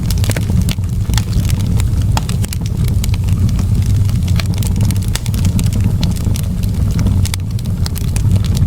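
Wood fire in a fireplace crackling, with many sharp, irregular pops and snaps over a steady low rumble of the flames.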